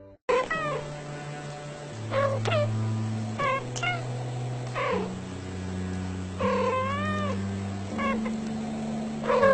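A cat meowing over and over in short calls that bend in pitch, with one longer, wavering meow a little past the middle. Background music with long held low notes plays throughout.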